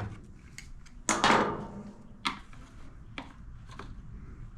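A knife blade working at an old fuel line where it passes through the fuel tank grommet of a backpack blower: a few sharp clicks and a brief scrape about a second in.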